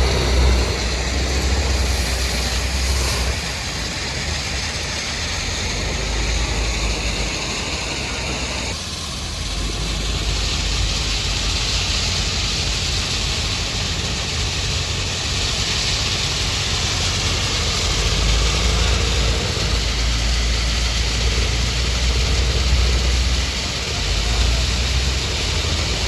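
Heavy diesel machinery running steadily with a deep engine rumble and a loud, noisy mechanical wash; the sound changes abruptly about nine seconds in.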